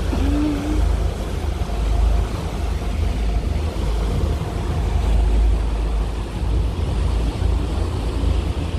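Harbour ferry under way: a steady low rumble of the engines and churning wake, with wind buffeting the microphone.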